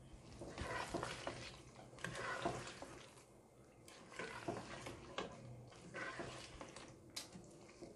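A spoon stirring thick chicken and potato gravy in a pot: several slow, wet stirring strokes about every two seconds, with a few light clicks of the spoon against the pot.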